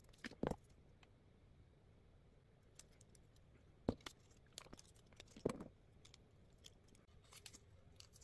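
Quiet handling sounds: a few sharp little clicks and crinkles as a foil sticker sheet and a small plastic figure are handled while stickers are peeled off and applied. The loudest clicks come about half a second, four and five and a half seconds in.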